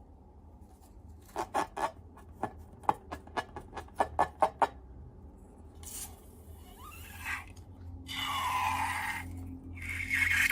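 Slime being worked by hand: a run of a dozen or so short, sharp clicking pops, then a few seconds of rubbing and scraping that grows louder toward the end.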